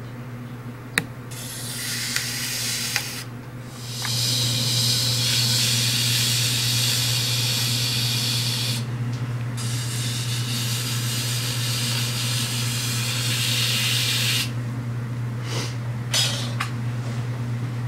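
Metal trimming tool scraping the leather-hard stoneware clay of a bowl spinning on a pottery wheel, a steady hiss that starts about a second in, breaks off briefly twice and stops a few seconds before the end. A steady low hum runs underneath, with a few sharp clicks.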